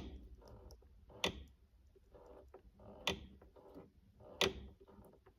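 Four sharp clicks, about every second and a half, from the Girling clutch master cylinder being pumped by hand while it is bled through its bleed screw.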